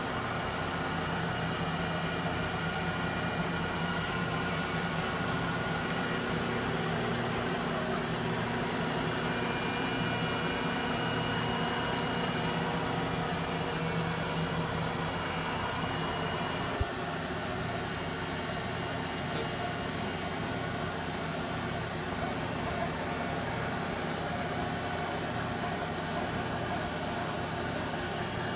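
Okuma LH-35N NC lathe running with a steady machine hum made of several steady tones, with one sharp click about two-thirds of the way through.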